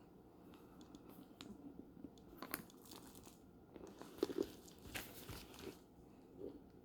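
Faint rustling and crinkling from a leather shoulder bag being handled and turned over, with a few sharp clicks, the loudest about two and a half, four and five seconds in.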